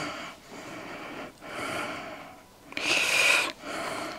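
A woman breathing close to the microphone, a string of noisy breaths about a second apart, the loudest about three seconds in.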